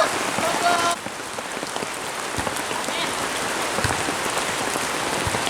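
Heavy rain falling steadily, an even hiss of rain on the ground. A voice is heard briefly in the first second.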